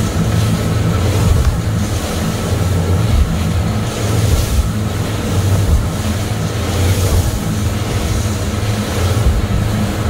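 Grady-White 268's twin outboard motors running under way at speed, a steady low drone, mixed with water rushing past the hull and wind buffeting the microphone.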